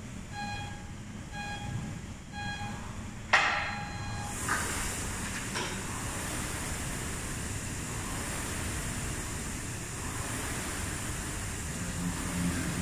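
Gym interval timer giving three short countdown beeps about a second apart, then a longer, louder start beep. Right after it the air rower's fan flywheel starts whirring steadily as the athlete begins rowing.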